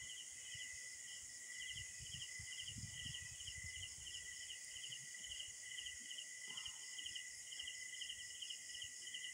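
Insects chirping: a regular pulsed chirp, about two and a half a second, over a steady high drone.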